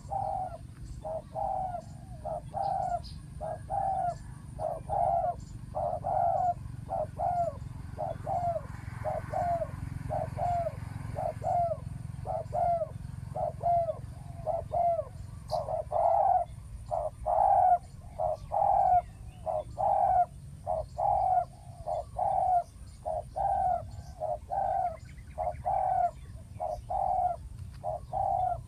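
Spotted dove cooing: a long, continuous run of short hooked coos at about one to two a second.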